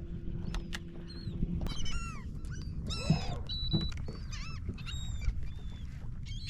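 A flock of seabirds calling over the water: many short, high, downward-falling cries overlapping one another, over a low rumble of wind and water.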